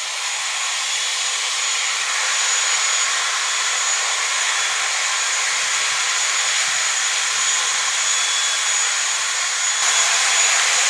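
Jet aircraft engines running: a steady rushing hiss with a thin high whine, swelling slightly near the end.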